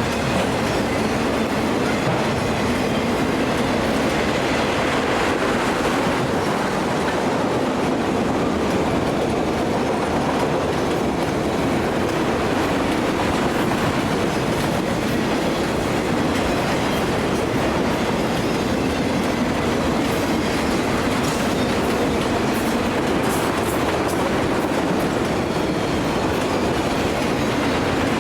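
Freight train cars rolling past at a steady speed, with an even, continuous rumble of wheels on the rails.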